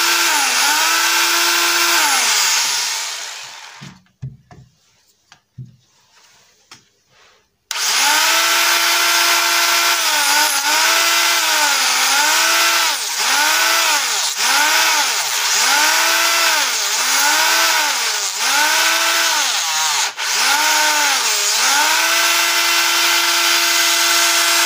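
Homemade mini wood-cutting machine, eight small DC motors geared to a saw blade and a dust fan, running with a high motor whine. It winds down about three seconds in, a few clicks follow, then it starts again suddenly. Its pitch sags and recovers about once a second before running steady near the end.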